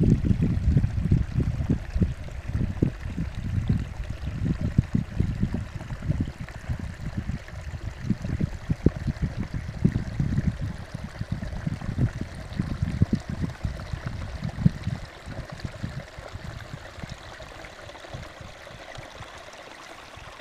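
Wind buffeting the microphone in irregular low gusts that die down about fifteen seconds in, over a faint steady hiss.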